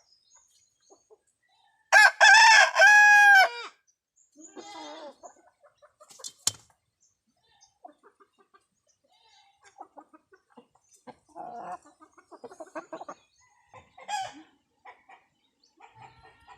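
A rooster crows once, loudly, about two seconds in, ending on a long falling note. Fainter scattered calls and clicks follow.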